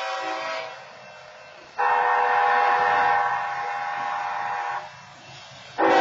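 Locomotive air horn sounding the long-long-short-long grade-crossing signal as a chord of steady tones. One blast fades out just under a second in, a full blast of about three seconds follows, and another blast begins near the end.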